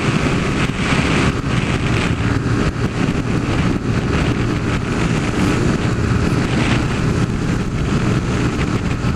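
Honda CG 150 Fan's single-cylinder four-stroke engine running steadily at cruising speed, heard from the rider's seat, with wind buffeting the microphone.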